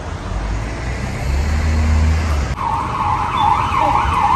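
Street traffic rumble, then about halfway through an emergency-vehicle siren starts up suddenly, yelping fast up and down about twice a second.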